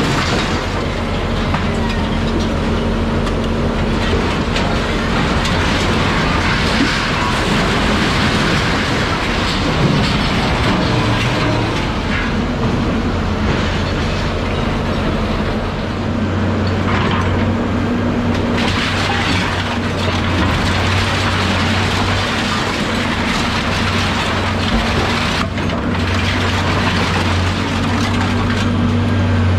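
A heavy engine running steadily with a low hum, under continuous rattling and clattering.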